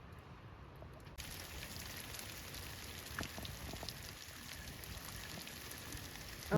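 Light rain falling: a soft hiss of drops with scattered little taps, starting abruptly about a second in.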